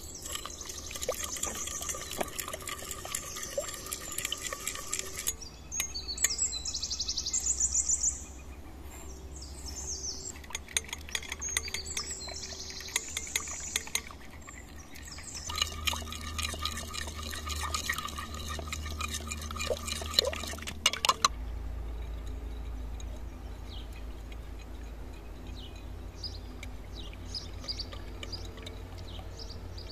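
A metal spoon stirring a watery yeast mixture in a glass bowl, with repeated clinks against the glass and liquid swishing. Birds sing in the background, and the clinking thins out in the last third.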